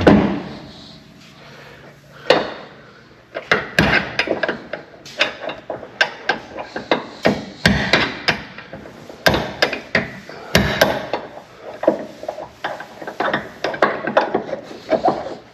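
Steel hammer tapping a door hinge pin on a 1968 Chevelle's door hinge: a long run of sharp metal knocks, about two or three a second, starting a couple of seconds in.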